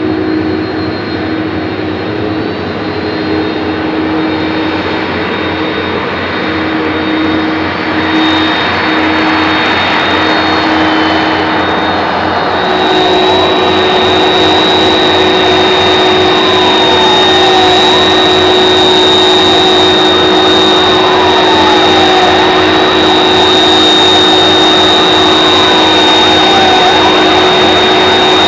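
Airbus A300-600ST Beluga's turbofan jet engines running at taxi power: a steady rumble with a high, steady whine, which changes in character about twelve seconds in.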